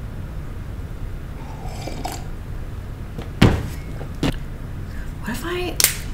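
Two sharp clicks of hard painting supplies being knocked or set down, over a steady low hum, with a brief murmur of voice near the end.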